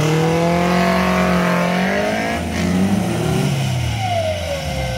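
Off-road Suzuki Jimny 4x4's engine revving hard as it tries to drive out of a mud hole: the revs climb, hold high for about two seconds, waver, then drop off near the end.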